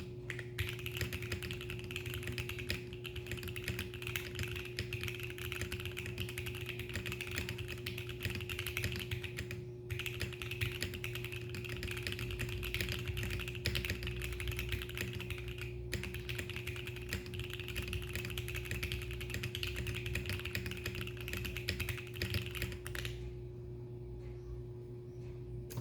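Continuous fast typing on an F1-88 mechanical keyboard with Gateron Cap Golden V2 switches, an aluminum plate and Shenpo beige keycaps. There are three brief pauses, and the typing stops a few seconds before the end.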